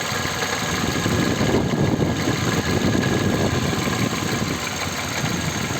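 Kia Ceed engine running in gear with the driven wheels off the ground, with a dense, irregular rattling knock from the drivetrain, which the owner takes for something loose in the gearbox.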